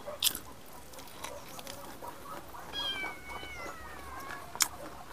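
A cat meows once, a long call falling in pitch about three seconds in, over scattered short chewing and lip-smacking clicks.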